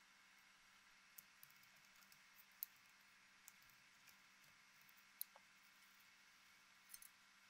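Near silence with a few faint, sharp clicks spaced out, from a screwdriver and small metal parts being handled as a cassette deck's reel motor is unscrewed and worked loose.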